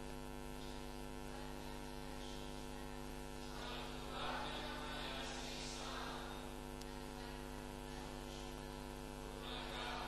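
Steady electrical mains hum in the audio feed, a low buzz with a ladder of overtones that does not change. A few faint, indistinct swells of noise rise over it now and then.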